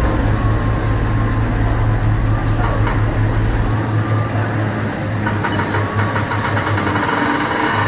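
An engine running steadily with a constant low hum; its deepest rumble drops away a little under four seconds in.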